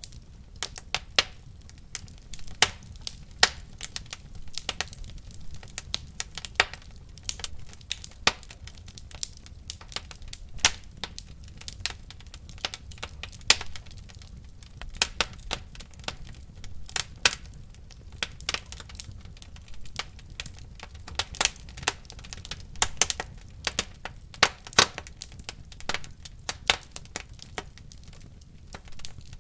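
Wood fire in a fireplace crackling, with frequent sharp irregular pops over a low steady rumble.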